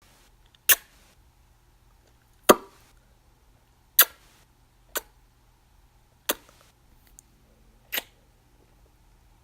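Lip-smacking kisses: six separate short, wet smacks, spaced about one to two seconds apart, the second one the loudest.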